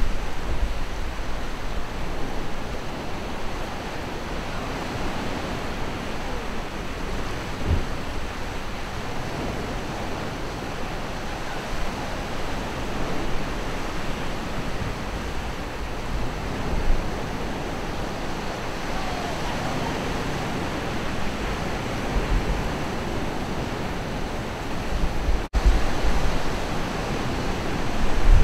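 Steady outdoor wind noise with low rumbling gusts on the microphone at the start and near the end, and a brief break in the sound a few seconds before the end.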